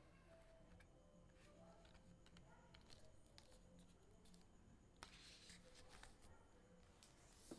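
Faint handling of unboxed items: scattered light taps and clicks, with a short rustle about five seconds in and another near the end.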